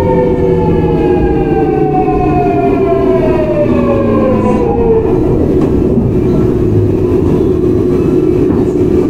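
Seoul Metro 4000-series electric train with GEC Alsthom GTO-VVVF inverter: the motor whine falls in pitch for about five seconds, then settles into one steady tone, over the rumble of the wheels. The falling pitch is the train braking and slowing.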